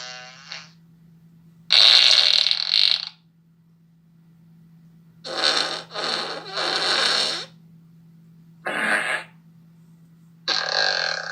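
A run of recorded fart sound effects, each a separate raspy blast. One lasts over a second about two seconds in, three follow in quick succession from about five seconds, a short one comes near nine seconds, and another comes near the end. A steady low hum runs underneath.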